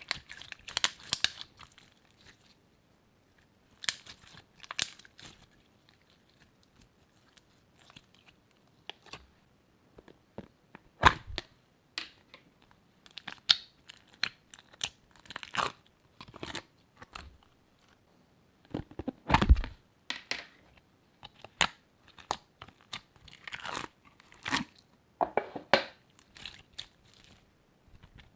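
Crunchy slime being squeezed and kneaded by hand, crackling and popping in irregular bursts with short pauses between. Two heavier, deeper squishes come about a third and two-thirds of the way through.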